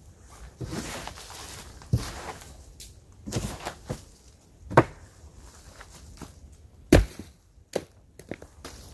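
Footsteps and rustling in dry fallen leaves and debris, with several sharp knocks of old weathered wooden boards being shifted and dropped as a ruined wooden hut is taken apart.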